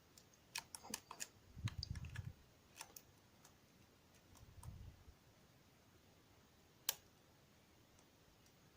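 Small, faint clicks and ticks of a pick and tension tool working inside a DOM ix10 KG dimple-lock euro cylinder, probing its interactive element, with a couple of soft low handling bumps. A single sharper click comes about seven seconds in.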